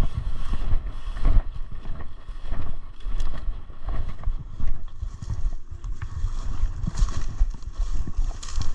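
Footsteps and brush rustling from walking through the woods, with irregular short knocks over a steady low rumble of wind and handling on the microphone.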